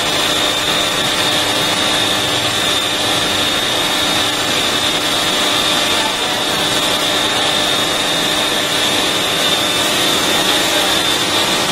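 ABW VGS 70 high-pressure washer running steadily: its pump motor holds a constant high tone under the hiss of the water jet spraying onto a motor scooter.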